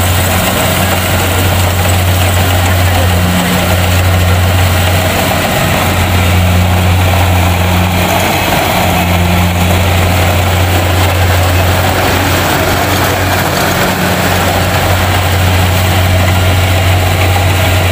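Kubota DC-70 rice combine harvester's diesel engine running steadily at working speed: a constant low drone with steady mechanical noise over it.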